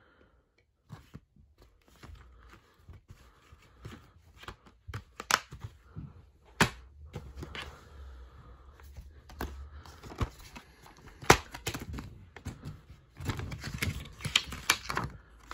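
Plastic DVD cases handled, opened and closed: sharp clicks and snaps a few seconds apart, with light rustling of the paper inserts in between.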